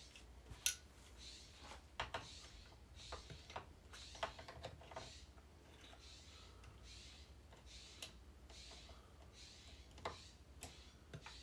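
Faint, scattered clicks and light taps of hard plastic as a plastic vent with an O-ring is worked by hand into a Stihl 029 chainsaw's housing. It is a snug O-ring-on-plastic fit.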